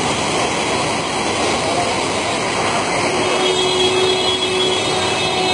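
Fast-flowing floodwater rushing in a steady, loud wash around partly submerged cars. A faint steady tone joins about three seconds in.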